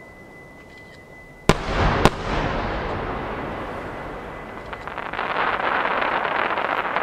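Two 12-inch shakudama firework shells bursting about half a second apart, each a sharp boom, followed by a long rolling echo. From about five seconds in comes dense crackling from the shells' glittering sparks.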